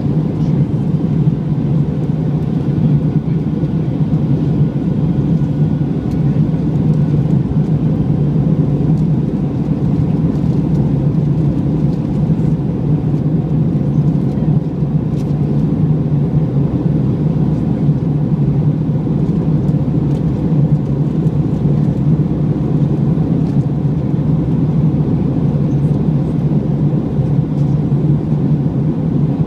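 Airbus A321 cabin noise in flight, heard from a window seat: a steady, even low rumble of engines and airflow.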